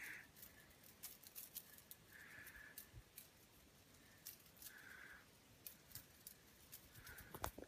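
Near silence: faint room tone with scattered soft ticks, and a faint hiss that comes back about every two and a half seconds.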